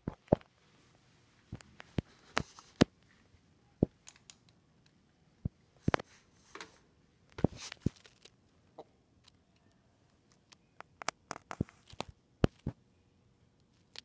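Irregular sharp clicks and knocks of handling noise as the ceiling fan is switched on, with a faint steady hum from the fan coming in about halfway through.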